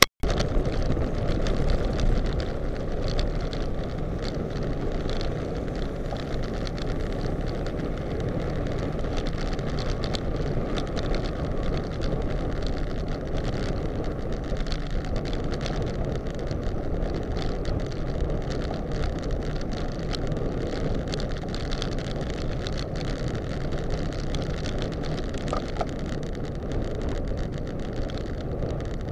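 Steady wind rush on a Contour+ action camera's microphone while riding a road bicycle at speed, with tyre and road noise underneath. It begins abruptly and stays even throughout.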